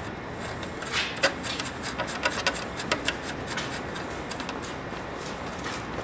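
Light metallic clicks and rubbing as a nut is turned by hand onto a scooter's front axle bolt. The ticks come in a quick scatter over the first few seconds, then thin out.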